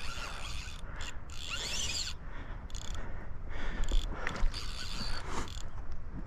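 Fly reel's click-and-pawl drag ratcheting continuously on a 5-weight fly rod while a hooked steelhead is being fought.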